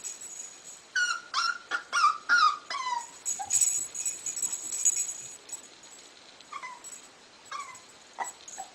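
Young puppy whimpering: a quick run of short, high cries that fall in pitch, followed by a few fainter whines near the end.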